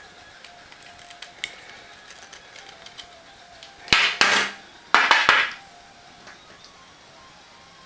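Light clicks, then two short loud bursts of scraping clatter about a second apart, as the opened plastic base of an LED bulb is worked with a metal tool.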